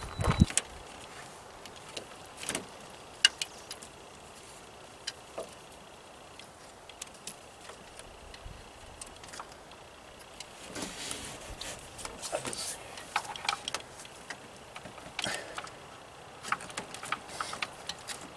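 Hand work on parts at a truck's throttle body: scattered clicks, taps and light rattles of plastic and metal as the rubber airbox gasket and its plastic clips are fitted, with a heavy knock right at the start and small clusters of rattling clicks in the middle and near the end.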